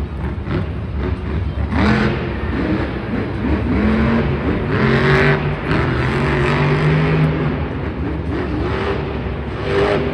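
Monster truck's supercharged V8 engine revving hard, its pitch rising and falling again and again as the throttle is worked, with a louder surge about halfway through.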